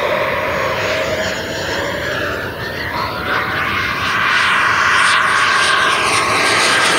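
Freewing Avanti model jet's 80 mm WeMoTec Midi Evo electric ducted fan running at high power in flight: a steady whine over a rush of air. It grows louder about four seconds in as the jet comes closer.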